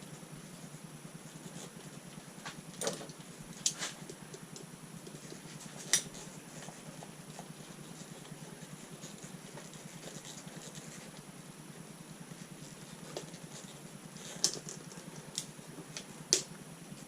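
Scattered sharp clicks and taps of hand-tool work on an RC truck's front A-arm hinge pins, with vice grips pressing the pins into the arm, over a steady low hum. The taps come in small clusters, the sharpest about six seconds in and a group near the end.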